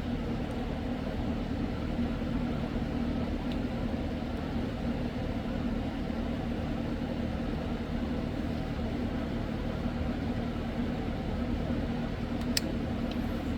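Steady mechanical hum with low steady tones, unchanging throughout, with a few faint clicks near the end.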